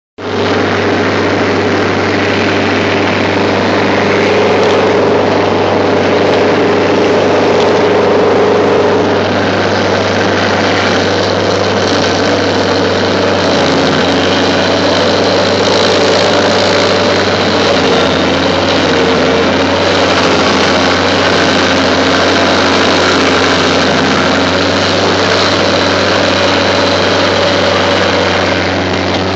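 Stump grinder running steadily at working speed, its engine hum under a dense grinding noise as the cutter wheel chews through the roots holding a rootball.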